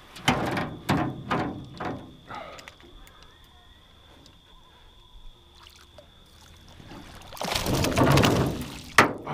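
Hooked smallmouth bass splashing at the surface beside a canoe: several short splashes in the first two seconds, then a longer bout of splashing near the end, followed by a sharp knock.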